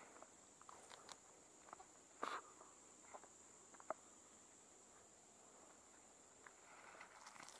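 Quiet: a few faint scattered clicks and rustles as the lead sinkers and nylon mesh of a cast net are gathered in the hand, over a steady high insect drone.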